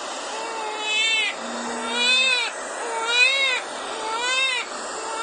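Baby crying in rhythmic wails, about one a second, each rising then falling in pitch, over a steady white-noise hiss.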